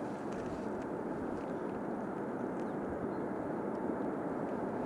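Distant 2TE116U two-section diesel-electric locomotive hauling a freight train, heard as a steady far-off rumble as it approaches.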